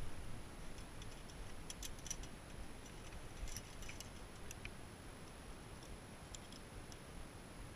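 Light metallic clicks and clinks of climbing carabiners and protection gear being unclipped and handled, coming in a few scattered clusters over a low steady rumble.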